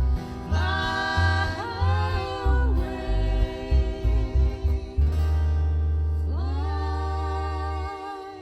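Choir and band rehearsal music: long held sung notes that slide up into pitch, over guitar and a pulsing bass line that settles onto one long held bass note about five seconds in.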